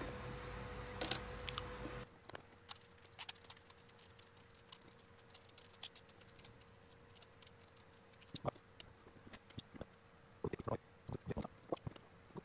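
Small light clicks and taps of thin wooden and card model-kit parts being picked up and handled on a cutting mat. They come scattered, with a brief cluster near the end. A steady background hiss with a faint hum stops suddenly about two seconds in.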